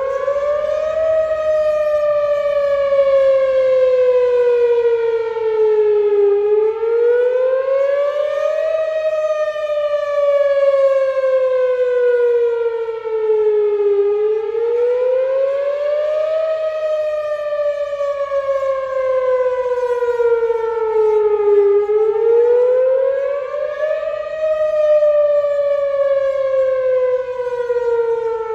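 Whelen Vortex R4 electronic tornado siren sounding its wail tone in a routine test, very loud. Its pitch climbs for about two seconds, then slides slowly down for about five, repeating about every eight seconds, just under four times in all.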